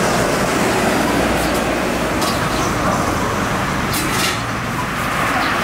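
Steady road traffic noise from a busy street, with a few brief sharp clinks.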